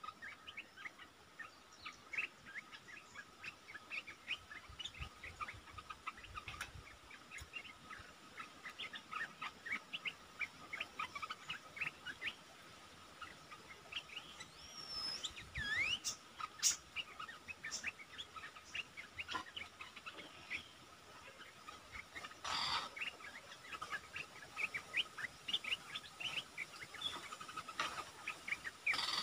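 Olive-winged bulbuls calling: a running series of short, quick chirps, with a longer gliding call about halfway through, over a faint steady high tone. A brief burst of noise comes about three quarters of the way in.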